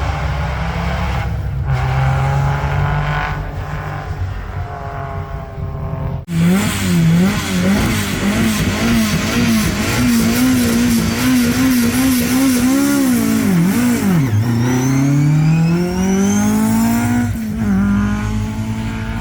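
A historic rally car's engine is held at high revs at the start line, the revs jumping rapidly up and down for several seconds. At about 14 seconds the revs dip as it launches, then climb steadily as the car accelerates away, with a gear change near the end.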